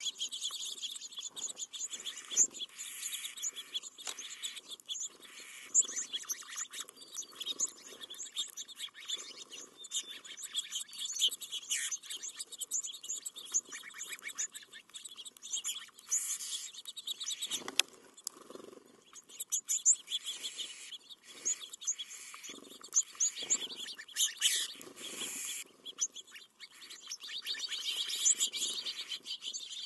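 A flock of small songbirds, house finches and sparrows, chirping and twittering continually as they feed close by, with many quick, scattered ticks mixed in.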